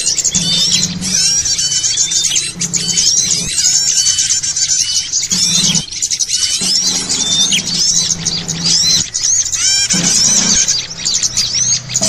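Bird-lure (pikat) recording: a dense, noisy chorus of small songbirds giving rapid, sharp rising chirps one after another. This is the agitated 'ribut' calling played to draw wild birds in.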